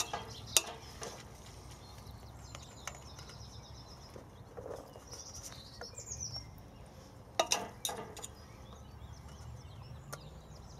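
Metal serving tongs clinking against a stainless steel pot as spaghetti is lifted out and served. A few sharp clicks, loudest in a quick cluster about seven and a half seconds in, with birds chirping faintly behind.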